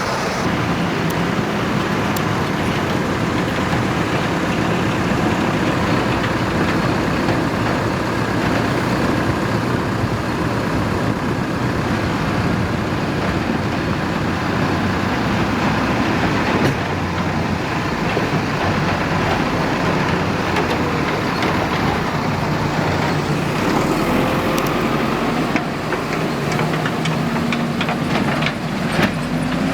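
Diesel engines of heavy earthmoving machinery running steadily under load, with a few sharp knocks near the end.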